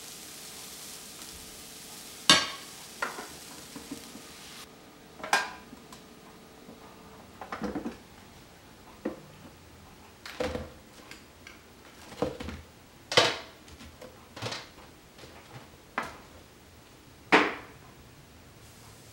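About ten irregular clinks and knocks of kitchen utensils against a glass mixing bowl, a waffle iron and a metal tray while waffle batter is spooned on and cooked waffles are lifted off. In the first few seconds, batter hisses on the hot waffle iron's plates, and the hiss cuts off suddenly.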